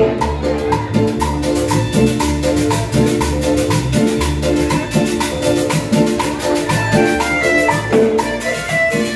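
Live band playing an upbeat Latin dance tune, with drums, electric bass and keyboard over a steady beat.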